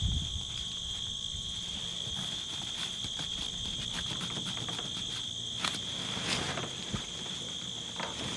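Steady outdoor chorus of singing insects, a continuous high-pitched drone, with a dull thump at the start and a few short rustles of a backpack and cord being handled about two-thirds of the way through.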